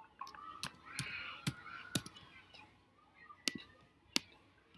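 Light, separate clicks of a computer keyboard and mouse, about seven of them spaced unevenly, as a short word is typed and an item clicked on screen.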